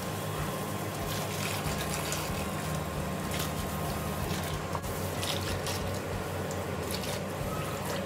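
Water from a garden hose pouring and splashing into a window air conditioner's condenser coil and fan shroud as it is rinsed clean, with a steady low hum beneath.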